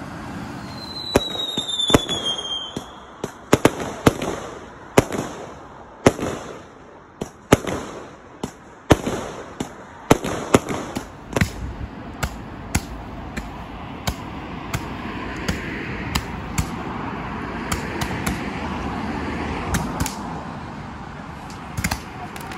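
Fireworks going off at close range. About a second in there is a falling whistle, then sharp bangs about once a second for some ten seconds, and after that a steady hiss and crackle with scattered smaller pops.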